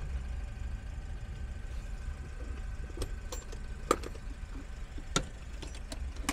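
Changan Star light truck's 1.5-litre four-cylinder engine idling with a steady low rumble, the engine running in good order. From about halfway through, several sharp clicks and knocks stand out over the idle.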